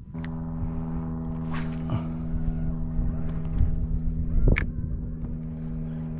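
Electric trolling motor of an Old Town Autopilot 120 kayak switching on and running with a steady hum, with a few knocks on the hull, the loudest about four and a half seconds in.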